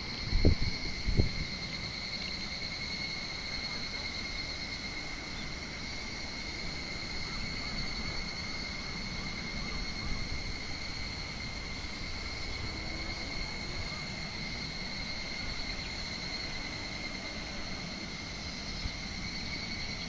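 An insect singing one unbroken, steady high-pitched trill, over a low rumble. Two dull thumps about half a second and a second in.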